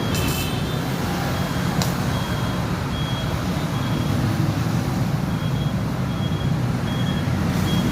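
Short, faint, high-pitched beeps repeating about every second over a steady low rumbling noise.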